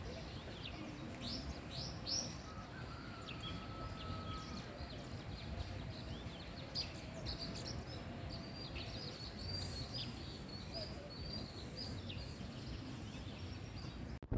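Birds chirping: many short high chirps, with a quick run of repeated chirps in the middle, over a steady low rumble of outdoor background noise.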